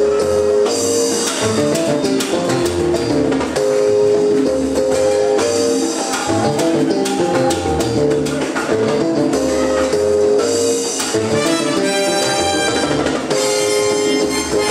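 Live salsa band playing an instrumental passage: a brass section of trombones and trumpets over timbales and congas, keeping a steady dance rhythm.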